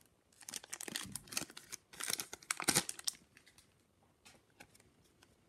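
Foil wrapper of a hockey card pack tearing and crinkling as it is ripped open, in quick irregular runs for about three seconds, then only a few faint rustles.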